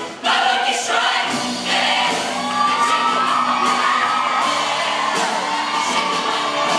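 Show choir singing with live band accompaniment, with whoops from the audience over the music.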